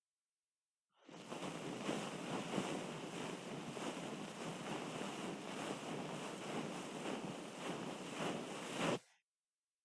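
Close-up ASMR ear-cleaning sounds: an ear-cleaning tool scratching and rubbing against a microphone's ear in a dense, continuous rustle. It starts about a second in and cuts off abruptly about nine seconds in.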